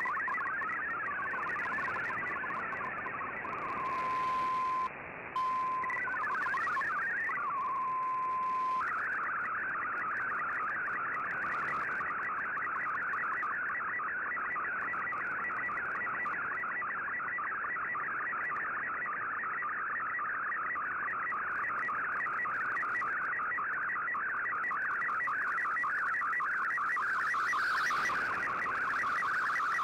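Shortwave MFSK digital data broadcast received on an Icom IC-R8600: a fast warble of hopping data tones carrying text, then between about 4 and 9 seconds in a steady single tone with a short gap and a quick sweep, then an unbroken, denser warble as an MFSK picture is sent.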